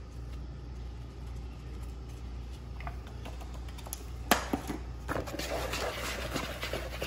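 Metal spoon stirring seasoned flour in a plastic bowl: a sharp knock about four seconds in, then scratchy stirring and scraping against the bowl. A low steady hum underlies it.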